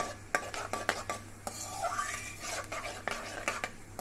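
Metal ladle scraping and clinking against an iron kadai, stirring fennel seeds frying in hot coconut oil. Irregular sharp clicks throughout, with a hiss of frying between about one and a half and three seconds in.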